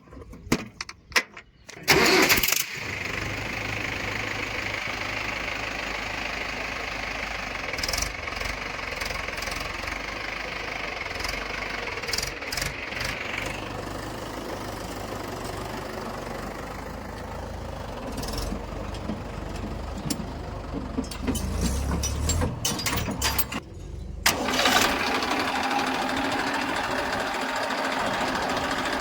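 A heavy diesel vehicle engine, tractor or backhoe, starts up about two seconds in after a few clicks and then runs steadily. Near the end it drops out briefly and comes back louder.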